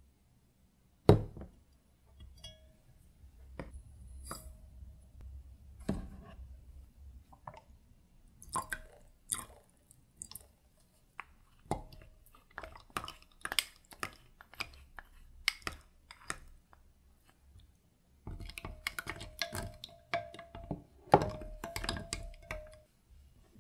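A glass measuring jug handled on a table: a sharp knock about a second in, then scattered clinks and taps as liquid is added. Near the end comes a run of rapid taps with a faint ringing tone, as a wooden spoon stirs against the glass.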